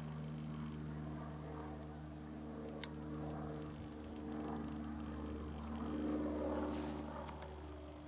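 Light single-engine propeller plane passing overhead, its piston engine running with a steady hum. A single sharp click about three seconds in.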